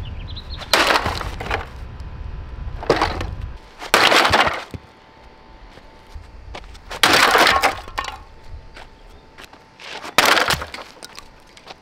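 A Dirt Devil Ultra MVP vacuum cleaner being smashed: five loud crashes of its housing cracking and breaking, a few seconds apart, with a low rumble underneath that stops about four seconds in.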